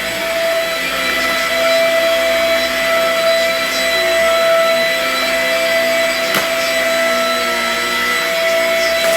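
Vacuum cleaner running steadily: a constant motor whine over a rushing hiss, with one brief click about six seconds in.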